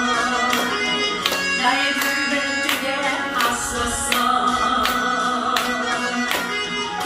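Instrumental accompaniment of a gospel praise song between sung lines: a steady beat of about one and a half strokes a second over sustained chords.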